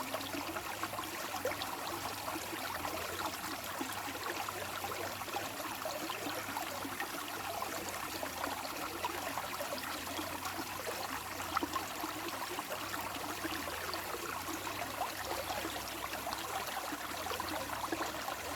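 Water flowing steadily, like a stream, a continuous even rush with many small splashing flickers.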